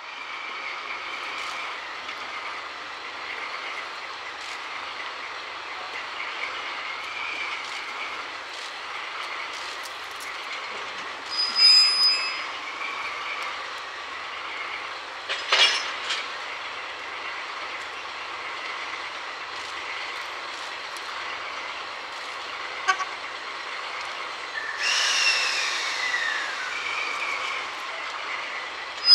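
Diesel shunting locomotives running slowly in a freight yard, with a steady engine and rail noise. A brief high squeal comes about 12 seconds in and a sharp metallic clank a few seconds later. Near the end a long wheel squeal falls in pitch.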